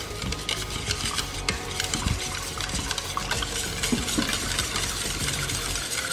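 A kitchen utensil stirring in a container, with frequent light clicks and scrapes against its sides.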